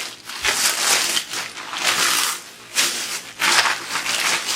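Plastic toy rifle parts and their packaging being handled, rustling and crackling in several rushes.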